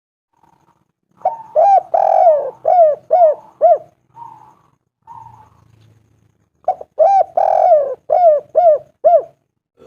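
Spotted dove cooing: two phrases of rhythmic coos a couple of seconds apart, each a run of short notes that rise and fall in pitch, with one longer note in the middle.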